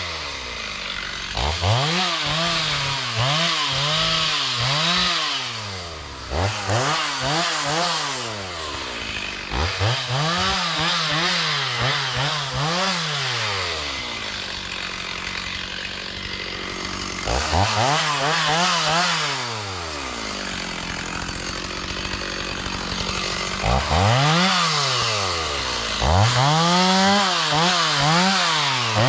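Chainsaw engine revved up again and again in bursts of a few seconds, each time falling back to idle, with two longer spells at idle in the second half.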